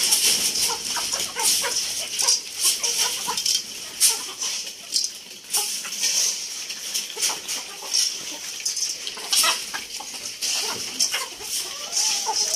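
Chickens clucking while they feed, with many short sharp ticks and taps throughout as they peck at scattered grain and at a feed bowl.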